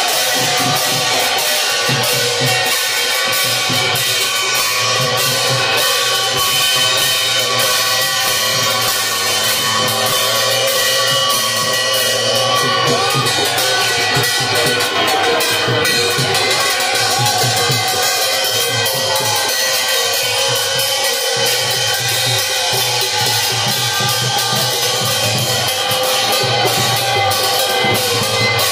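Loud festival percussion: drums beaten in a steady rhythm while hand-held metal gongs and cymbals ring without a break.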